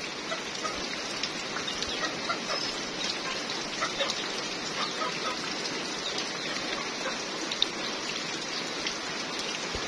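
Steady rain falling, an even hiss with scattered light drop ticks.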